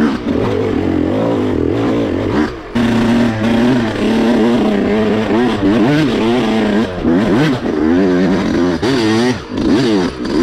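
Yamaha dirt bike engine revving up and down as the rider works the throttle on the trail, with brief dips in revs where the throttle is rolled off, the longest about two and a half seconds in.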